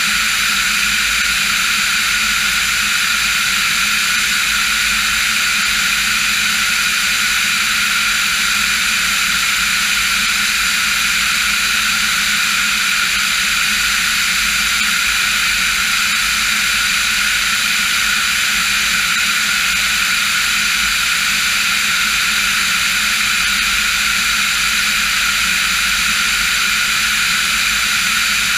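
Diamond DA40 NG light aircraft's turbo-diesel engine and propeller droning steadily in level flight, with no change in pitch or loudness.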